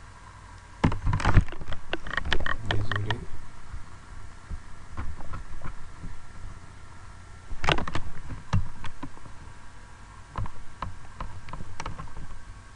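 Bursts of sharp clicks and knocks close to the microphone, one cluster a second or so in and another about two-thirds of the way through, typical of handling at a computer desk, over a faint steady high whine.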